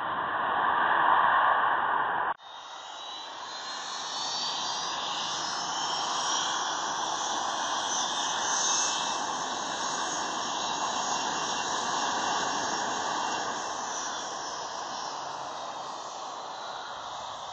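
Jet airliner engines: a steady rushing roar with a high whine that climbs in pitch and later sinks lower. A louder rushing noise cuts off abruptly about two seconds in.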